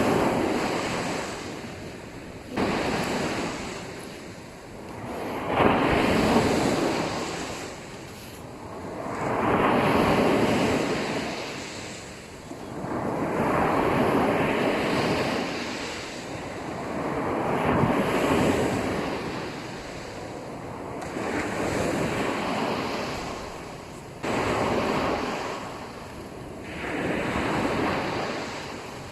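Sea waves washing onto a sandy beach, each one breaking and rushing up the sand, then fading, about every four seconds. A few of the waves break with a sudden onset.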